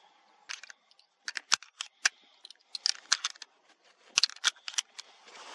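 A run of sharp clicks and crackles in irregular clusters, about one cluster a second, with short quiet gaps between them.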